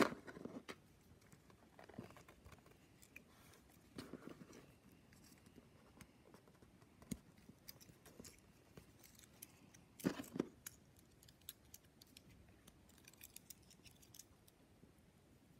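Faint, scattered clicks and rustles of small hard-plastic Playmobil accessories being handled and snapped onto a figure, with the loudest clicks about ten seconds in.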